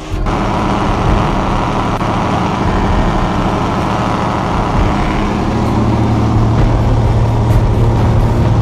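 Toyota Hilux pickup engine running steadily, with a loud exhaust note.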